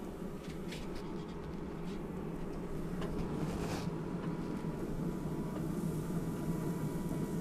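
Pellet smoker running with a steady low hum from its fan while it heats up. A few light clicks come from the pork shoulders and a thermometer probe being set on the metal grate.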